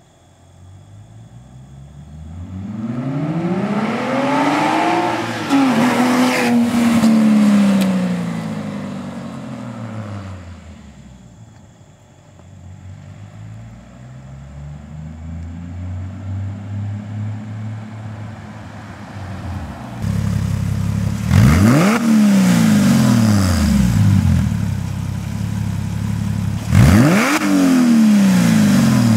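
Porsche Cayman S engine through a custom exhaust: the car accelerates with the pitch climbing, then eases off and the note falls away. In the second half two sharp revs rise quickly and die down over a couple of seconds each.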